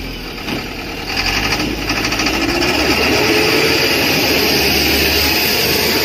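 Dump truck's engine running, growing louder about a second in and then holding steady.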